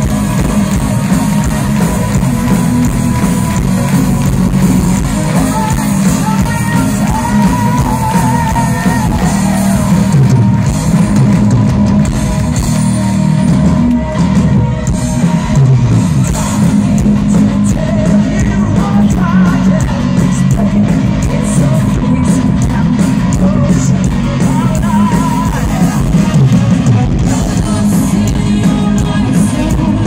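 Symphonic metal band playing live at high volume: drums, electric guitars and singing over a heavy low end.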